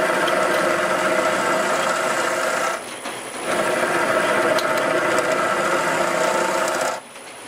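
Bowl gouge cutting a spinning wooden bowl blank on a wood lathe: a steady scraping cut that drops away briefly about three seconds in and again near the end.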